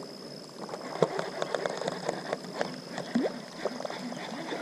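Small water sounds lapping and gurgling against the boat, with light irregular clicks and ticks, the sharpest about a second in.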